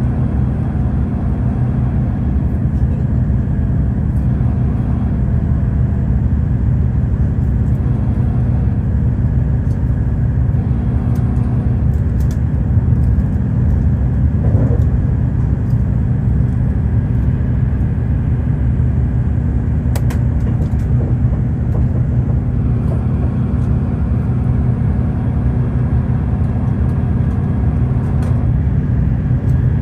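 Steady low rumble of a moving vehicle, even and unchanging, with a few faint ticks over it.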